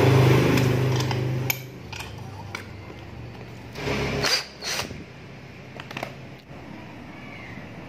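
Cordless drill running steadily, spinning the rivet-nail shank chucked in it, and stopping about one and a half seconds in. After that come scattered clicks and knocks, with a louder cluster near the middle, as the drill's keyless chuck is handled and loosened.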